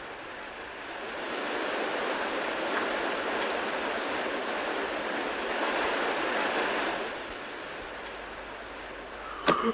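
Cartoon sound effect of heavy rain: a steady rushing hiss that swells about a second in and eases off around seven seconds. A short sharp click comes just before the end.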